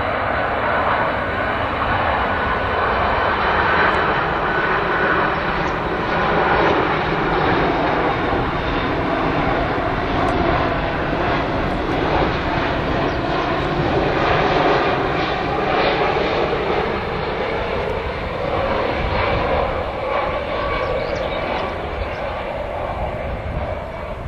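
Jet airliner's engines passing close by as it comes in to land: a loud, continuous rush of jet noise whose pitch slowly shifts as it goes by, easing off a little near the end.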